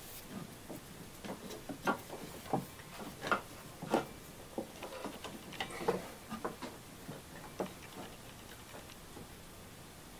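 Irregular light clicks and knocks as a serpentine drive belt is handled and worked around the alternator pulley and nearby engine parts, dying down near the end.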